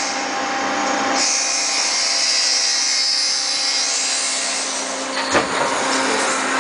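Heavy workshop machinery running: a steady mechanical hum under a broad din, with a high hissing rush for a few seconds and a single sharp clank about five seconds in.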